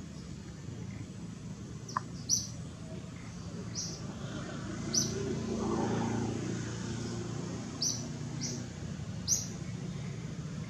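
Short, high bird chirps, about half a dozen spaced a second or so apart, over a steady low rumble that swells and fades around the middle.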